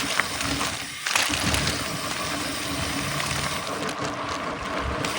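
Mountain bike rolling fast down a dirt trail: a steady rush of tyres on dirt and wind past the microphone. It dips briefly and then comes back with a sudden jolt about a second in, as the bike comes down off a hump.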